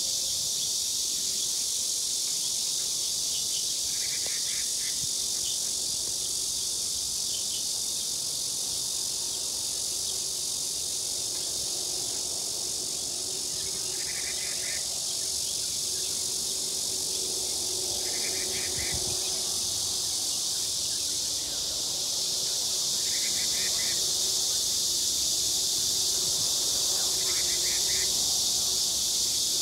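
A dense, steady, high-pitched insect chorus, with a short call recurring five times over it.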